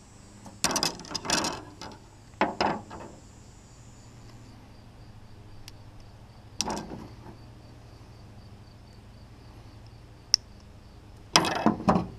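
Arrows being handled on a plastic truck-bed tailgate liner, rubbing and clattering in four short bursts, with a single sharp click shortly before the last. Insects chirp steadily behind.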